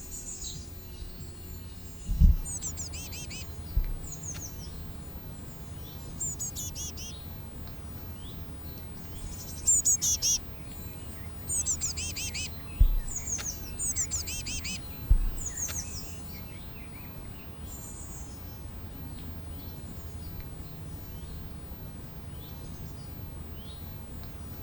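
Small forest birds chirping in short, high, rapid trills, busiest in the first two thirds and sparser afterwards, over a steady low rumble, with a few brief dull thumps.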